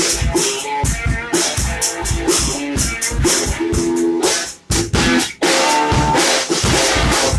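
Background music driven by a drum kit with a steady beat and pitched instruments over it; it cuts out briefly about two-thirds of the way through, then comes back.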